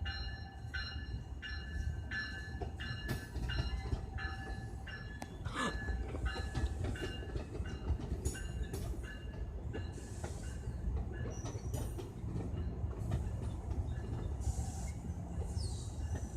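NJ Transit passenger train led by cab car 7022 rolling past with a steady low rumble. A bell rings about twice a second over it, plain for the first six seconds and fainter after.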